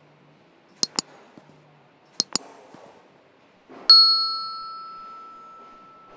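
Subscribe-button sound effect: two quick double mouse clicks, then a single bell ding that is the loudest sound and rings on, slowly fading.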